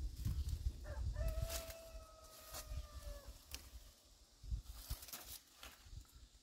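A rooster crowing once, a single long held call of about two seconds starting about a second in. Close rustling and sharp snaps of bean vines come as long bean pods are picked by hand.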